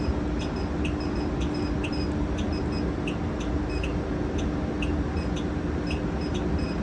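Steady low rumble and hum of a transit bus, with a light high chirp repeating about twice a second.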